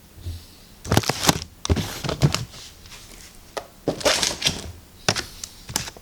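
Handling noise: irregular knocks, clicks and rustling come in several short clusters, the sound of things being picked up and moved about.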